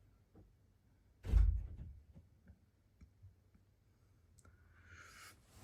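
A single dull thump about a second in, then a few faint clicks and a short hiss near the end.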